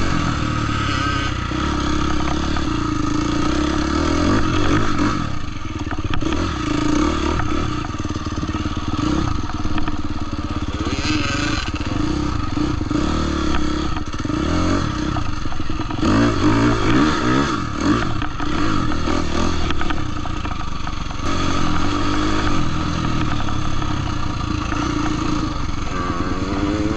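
Dirt bike engines running and revving up and down repeatedly.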